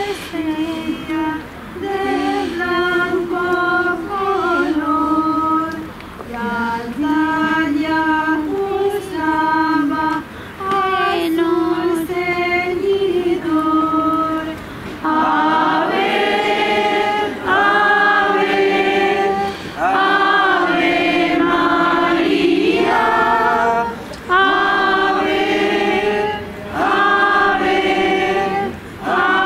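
Choir singing a religious hymn in phrases, with short breaks between lines. The singing grows fuller and louder about halfway through.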